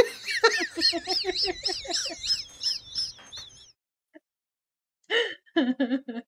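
A man laughing hard in a rapid run of high-pitched cackles, about four or five a second, which breaks off about three and a half seconds in. After a short pause, a few more gasping bursts of laughter come near the end.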